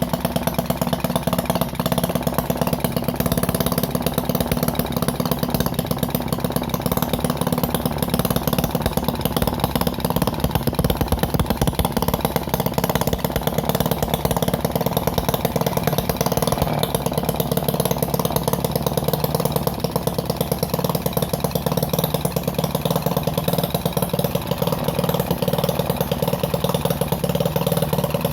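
Homemade mini four-stroke engine built from a refrigerator compressor, running steadily with a rapid, even firing beat.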